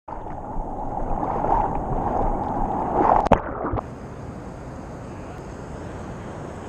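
Seawater splashing and gurgling at the camera as a hand paddles a surfboard, with a sharp splash a little after three seconds. Just before four seconds it drops suddenly to a quieter, steady lapping of small swells against the camera.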